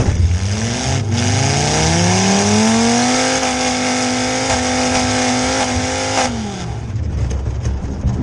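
Demolition derby vehicle's engine, heard from inside the cab, revving up to high revs over about three seconds, holding steady there for about three seconds, then dropping back off.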